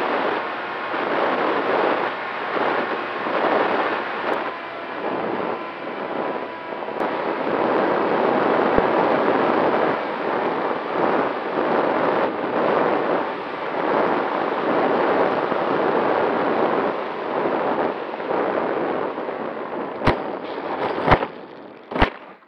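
Wind rushing over an RC plane's onboard camera, with a faint steady motor and propeller tone underneath. Near the end come three sharp knocks as the plane hits the dirt ground in a crash.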